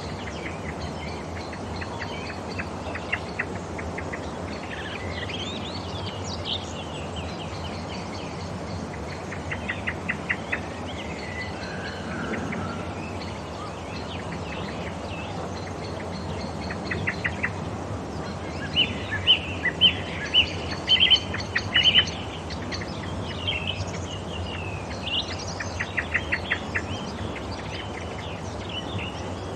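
Wild birds calling and singing in quick chirps and trills, with a busy, louder cluster of chirps about two-thirds of the way through, over a steady outdoor background hiss.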